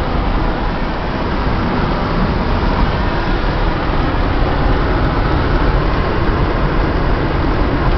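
Steady road and wind noise of a car driving along, heard from inside the car.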